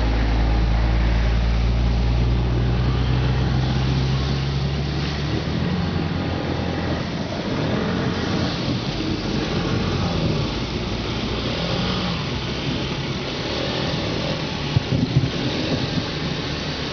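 Polaris Sportsman 800 ATV's twin-cylinder engine running under load as it drives through deep floodwater. Its note holds steady for about the first five seconds, then rises and falls with the throttle.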